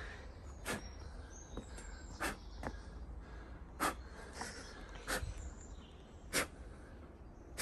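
Short, sharp clicks repeating about every second and a quarter, about six in all, over a low rumble, with faint bird chirps in the background.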